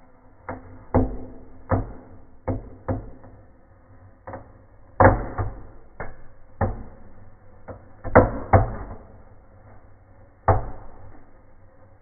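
Fireplace firework burning in a stove, giving off about a dozen irregular sharp pops and crackles as it sprays sparks, the loudest about five seconds in and a close pair about eight seconds in.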